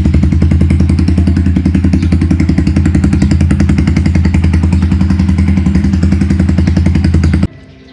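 Rusi KR150 motorcycle engine idling steadily, running again after stale fuel was drained from it, and left running to charge the battery. It cuts off suddenly near the end.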